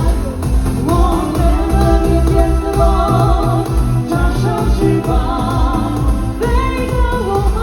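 Live stage-musical performance: a singer holding notes with a wavering vibrato over a full musical accompaniment with a heavy bass.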